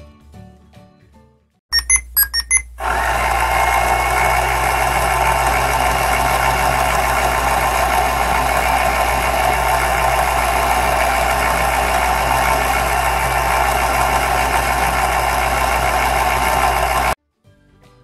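A battery-operated toy washing machine beeps about five times in quick succession as it is started. Its small drum motor then runs with a steady whir and low hum for about fourteen seconds and cuts off suddenly.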